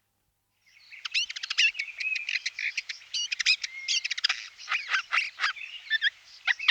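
Common nightingale singing a fast, varied song of whistles, trills and clicks that starts about a second in.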